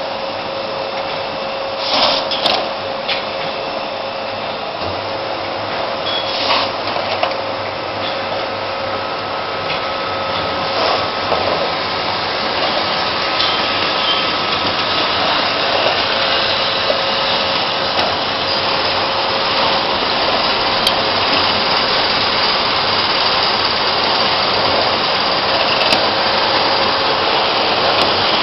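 Automatic ice cream cone machine running: a steady mechanical whirr and hiss with a few sharp clacks in the first seven seconds, growing a little louder in the second half.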